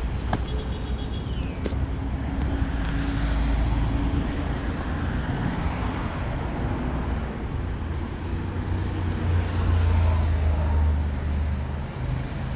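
Road traffic: a steady low engine rumble with road noise, swelling louder about nine to eleven seconds in.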